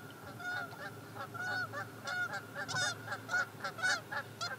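A flock of waterfowl calling in flight, a run of short honks a few times a second from several birds overlapping.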